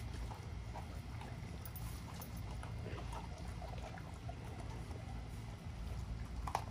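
XL American bully dogs chewing raw chicken: scattered wet crunches and clicks, with a sharper snap near the end. A steady low rumble lies underneath.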